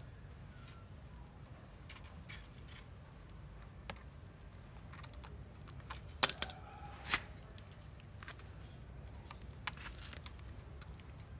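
Thin wire being twisted and worked with pliers against a plastic crate: scattered light clicks and scrapes, with a few sharp clicks about six and seven seconds in.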